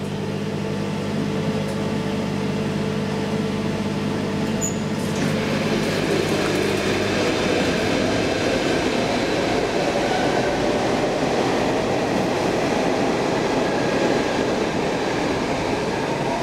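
Metro train running through the underground station: a steady rail noise that swells about five seconds in and carries on. Under it, a low steady hum fades out a few seconds later.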